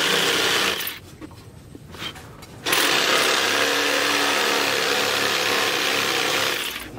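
Electric jigsaw running and cutting through a wooden board. It stops about a second in, starts again just under three seconds in, and cuts off shortly before the end.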